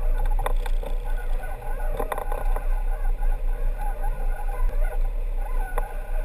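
Sportfishing boat's engine running in gear with a steady low rumble, with wavering higher-pitched tones and a few sharp knocks over it.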